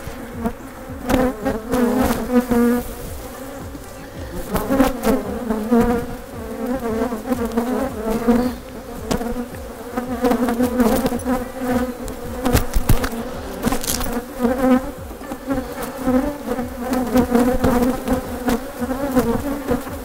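Upset honeybees buzzing loudly close around the microphone, a steady wavering drone with a pitch near 250 Hz, crossed by scattered short clicks and knocks. The bees are agitated by the hive being opened and worked.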